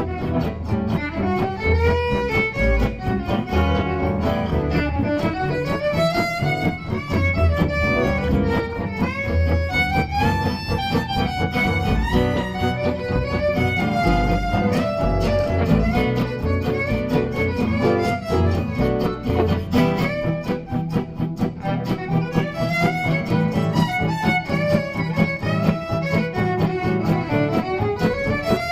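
Instrumental music: a melody with gliding, wavering notes over low bass notes.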